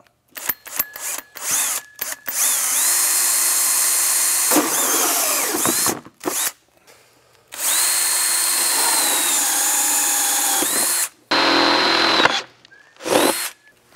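Cordless drill driving a hole saw through a plastic snowmobile body panel. It runs in spurts: a few short trigger blips, two long cuts of several seconds each that begin with a rising whine as the motor spins up, then shorter bursts near the end.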